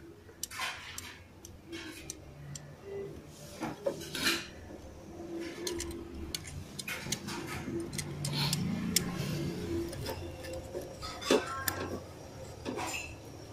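Irregular light metallic clicks and clinks as a steel feeler gauge and small tools are worked at a motorcycle engine's valve tappet while the valve clearance is set.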